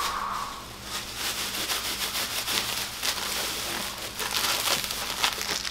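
Thin plastic grocery bag crinkling and rustling as it is handled and pulled at, in a dense run of small crackles.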